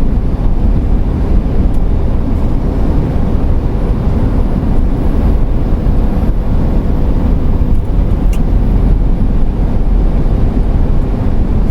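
Steady road noise inside a moving camper van at highway speed: a constant low rumble of tyres, engine and wind.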